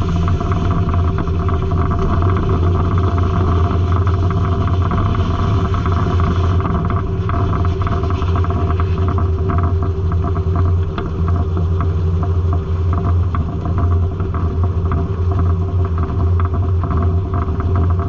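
Circle sawmill running: a steady mechanical hum with a deep low drone, under a constant whirring noise with fine irregular clatter.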